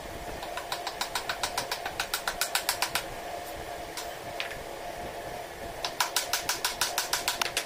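A small hammer tapping a nail into a joint of a wooden lattice in quick light strikes, about seven a second. There are two runs of taps: one from about half a second in lasting a couple of seconds, and another starting near the end.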